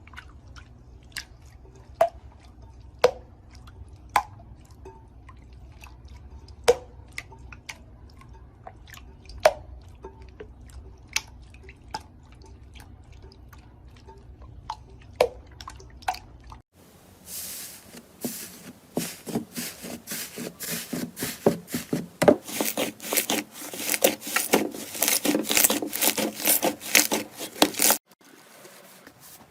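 Slime being handled, with scattered wet pops and clicks. About two thirds of the way in the sound changes abruptly to a dense run of crackling squelches as slime is squeezed and pressed.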